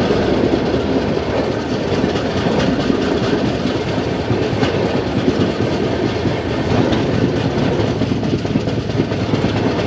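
Passenger train coach running along the track, heard from on board: a steady rumble of wheels on rail with a scatter of clicks over the joints.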